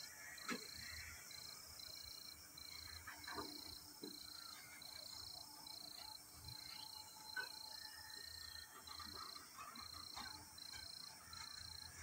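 Quiet rural ambience: a high-pitched chirping repeats about twice a second, with a few short bird calls over it.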